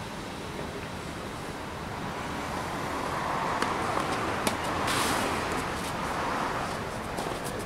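Tennis ball struck by rackets and bouncing on a clay court during a rally, heard as a few sharp pops about halfway through and again near the end. Under them is a steady background of road traffic that swells in the middle.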